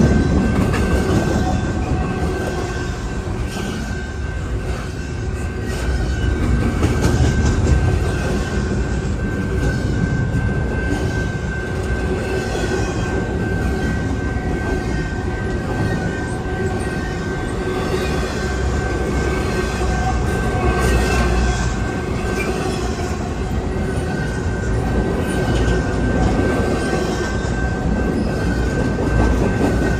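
Freight train's intermodal cars rolling past steadily, wheels rumbling on the rails with a continuous high-pitched wheel squeal.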